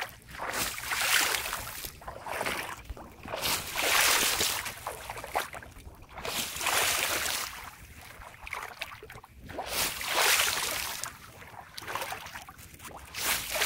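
Legs sweeping and kicking through shallow water in a flooded rice field, a swishing slosh every second or two. The water is being kicked to startle climbing perch into moving so they can be spotted and grabbed.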